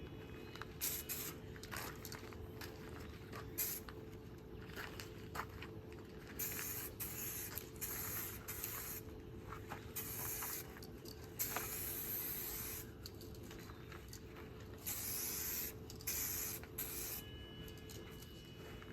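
Aerosol spray-paint can spraying in several short hissing bursts of about a second each, with brief pauses between them.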